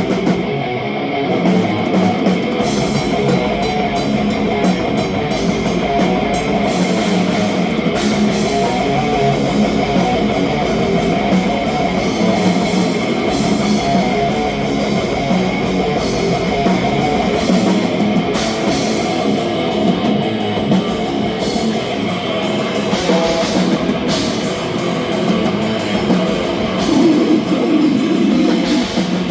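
Death metal band playing live: electric guitars and a drum kit in a loud, dense wall of sound, with rapid drum hits.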